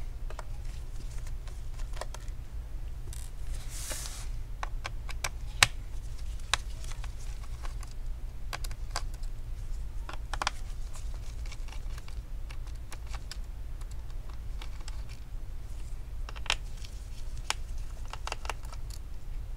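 Irregular small clicks and taps of a screwdriver and screws on a laptop's plastic back plate as its Phillips screws are taken out, with one sharper click about five and a half seconds in and a brief rustle a little before it. A steady low hum runs underneath.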